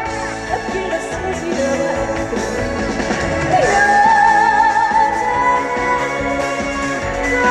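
Live trot song over the stage sound system: a female singer's voice over loud, steady backing music, holding a long note with vibrato about halfway through.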